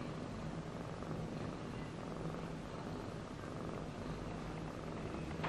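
Domestic cat purring steadily, close up, while a litter of young kittens nurses.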